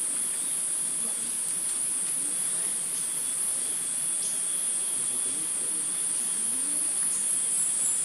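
Steady, high-pitched drone of insects calling in the woodland, unbroken throughout.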